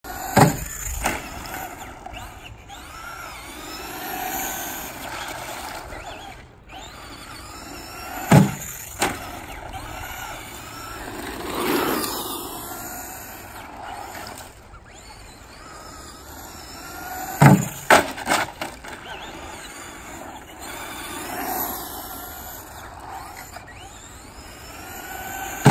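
Traxxas Slash RC truck making repeated runs on asphalt: the whine of its motor and the hiss of its tyres swell and fade as it passes. Each run ends in a cluster of two or three sharp knocks as it hits the wooden ramp and lands, about every eight seconds.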